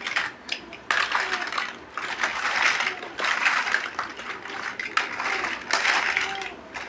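Plastic building bricks clicking and rattling as they are handled and pressed together, in repeated spells of about a second each, with sharp clicks among them.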